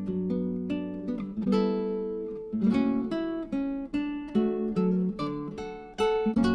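Background music: acoustic guitar plucking a steady run of notes.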